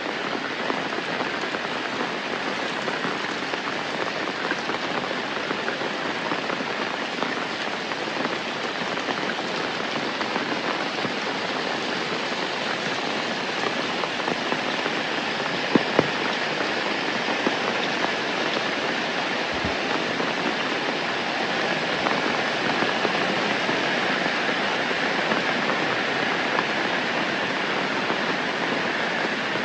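Steady rain falling, an even hiss, with a couple of brief sharp taps about halfway through.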